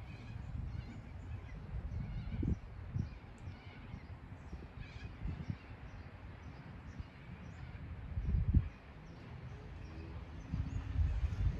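Wind buffeting the microphone in uneven low gusts, the strongest about three quarters of the way through, with faint bird chirps in the background.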